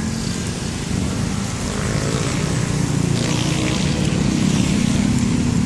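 Mountain stream running over rocks, with water spouting from a hose line: a loud, steady rushing noise.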